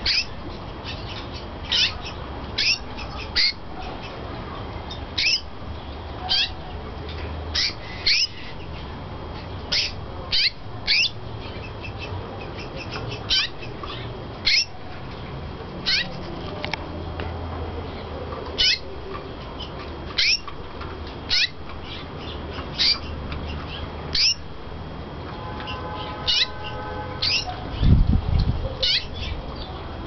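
Japan Hoso canary giving short, sharp chirps that drop quickly in pitch, singly or in quick pairs every second or so. Near the end comes a brief pitched hum and then a heavy low thump, the loudest sound.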